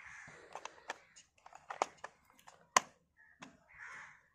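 Hard plastic toy car parts clicking and tapping as they are handled, a few separate clicks, the sharpest about three seconds in.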